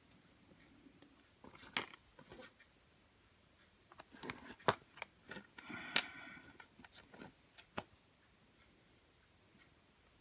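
Play-Doh tools and pots being handled on a table: scattered small clicks and taps of plastic with some rustling, in two clusters, the sharpest taps about halfway through, with a brief squeak among them.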